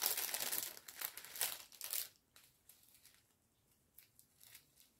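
Small plastic zip-lock bags of diamond painting drills being handled, crinkling for the first two seconds, then a few faint light ticks.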